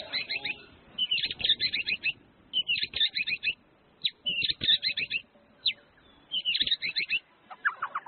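White-rumped shama (murai batu) singing: phrases of rapid chirps, each up to about a second long, repeated with short pauses between them.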